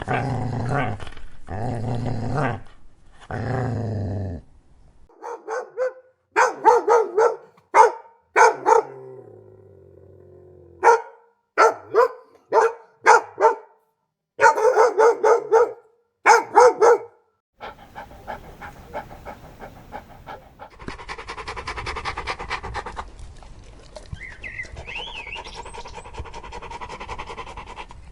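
A dog growling low for the first few seconds, then barking in quick runs of short barks, then panting rapidly and steadily through the last ten seconds.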